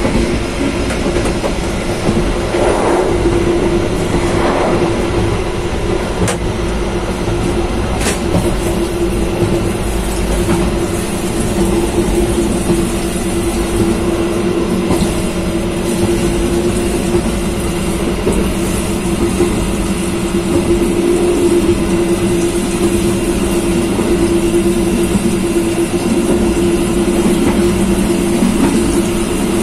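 Steady running noise inside a moving passenger train car: continuous rail rumble with a Panasonic ceiling exhaust fan running, holding one steady hum throughout.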